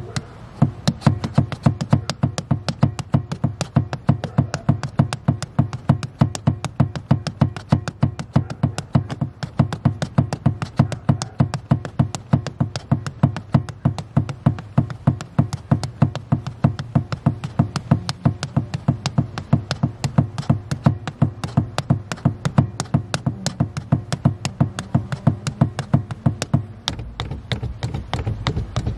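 Car accelerator pedal pumped quickly by a foot in a sheepskin slipper, a fast, even run of taps and clicks several times a second. A deeper rumble comes in near the end.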